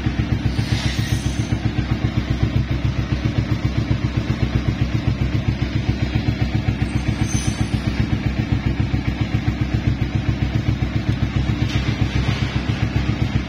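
Carbureted Kawasaki Ninja 250's parallel-twin engine idling through an R9 Racing aftermarket exhaust: an even, low, bassy pulse that stays stable.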